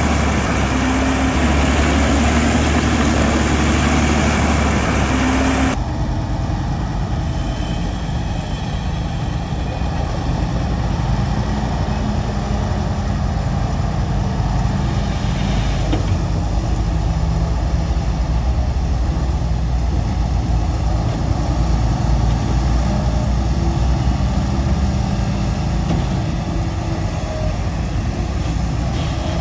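Heavy diesel engines of earthmoving machinery, bulldozer and dump truck, running steadily. The sound changes abruptly about six seconds in, from one machine's engine note to another.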